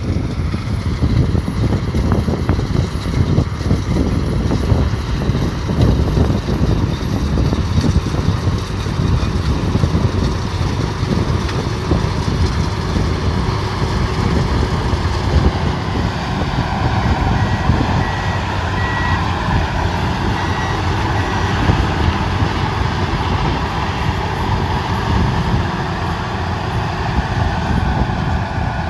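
Rice combine harvester's engine and machinery running steadily, with a reversing alarm beeping briefly a little past the middle.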